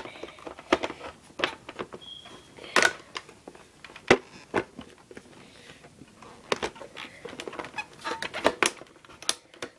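Irregular plastic clicks and knocks from handling the Nerf Vulcan EBF-25's tripod and fitting it onto the blaster, a few sharper knocks among lighter rattles.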